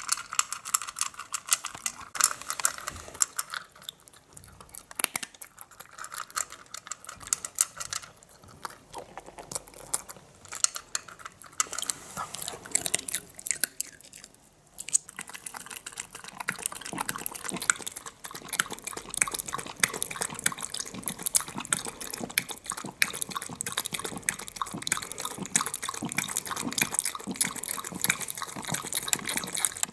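Small dog crunching dry kibble in its bowl, close up, with sharp irregular crunches. Later it laps water from a bowl in quick, even tongue strokes.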